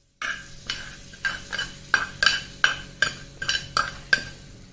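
Metal spoon scraping and tapping against a small pan, about a dozen short ringing clinks at two to three a second, as a hot tempering of ghee, cashews and curry leaves is scraped out of the pan. The clinking starts abruptly just after the start.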